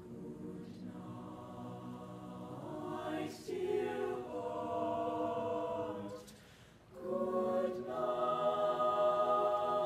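Mixed choir of teenage voices singing sustained chords, phrase by phrase, with a brief break for breath about six seconds in; the singing grows louder near the end.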